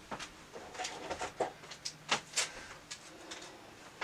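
Irregular rustles and light clicks and taps of hands handling things at a tabletop, scattered through, the loudest a little after two seconds in.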